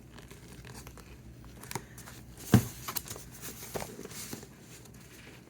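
Quiet handling of a cardboard shipping package: faint rustling and scattered small clicks and taps, with one sharper tap about halfway through.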